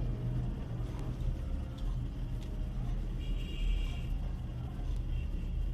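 Steady low rumble of background noise, with a few faint small clicks.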